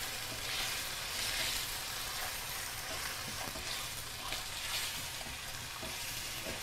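Pork tenderloin strips searing in hot oil in a wok over high heat: a steady sizzle that swells as the meat is stirred with a metal spoon, with light scrapes of the spoon against the pan.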